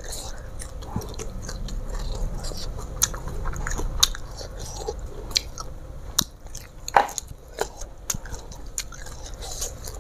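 Close-up biting and chewing of raw kenikir (Cosmos caudatus) leaves and stems, with crisp crunches and clicks scattered throughout. One louder crunch comes about seven seconds in.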